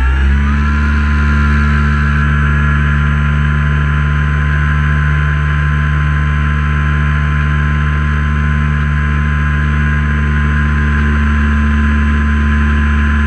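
Light aircraft's piston engine and propeller revving up, rising in pitch right at the start, then running steadily at a constant pitch at high power.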